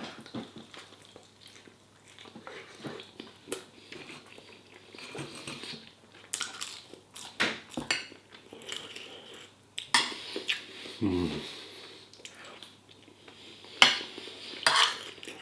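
Cutlery clinking and scraping on a plate, in scattered knocks and clicks, with chewing between them.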